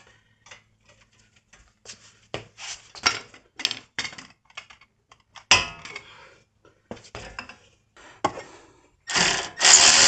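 Scattered metallic clicks and knocks of hand tools on the brake caliper bracket bolts, then, about nine seconds in, a cordless 3/8-inch ratchet starts running, backing out a loosened 17 mm bolt; the ratchet is the loudest sound.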